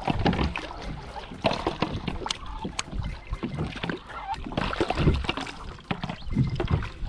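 Irregular splashing, knocks and clicks on a fishing kayak on the sea: water against the hull and gear being handled.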